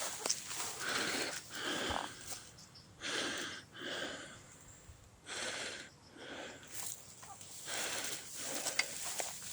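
A walker's heavy breathing close to the microphone, a series of noisy breaths about one a second with short pauses between them.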